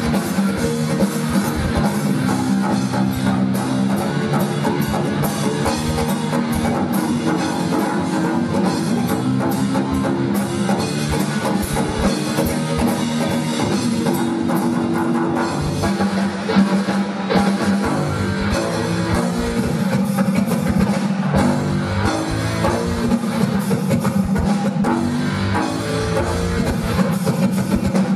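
Live rock music: a drum kit and electric guitars playing together with a pipe percussion instrument, its long tubes struck on their open ends with paddles to give stepping pitched notes.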